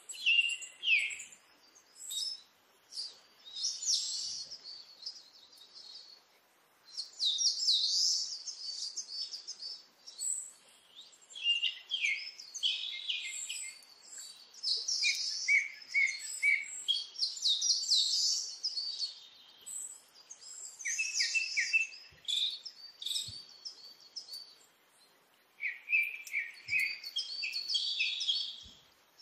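Small songbirds chirping and singing in runs of quick, high notes, phrase after phrase with short pauses between.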